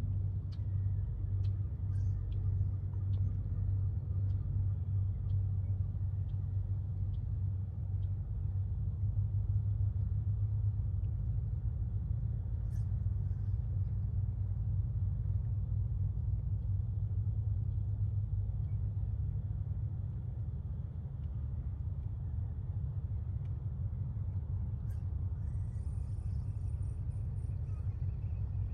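A steady low rumble, easing slightly about two-thirds of the way through.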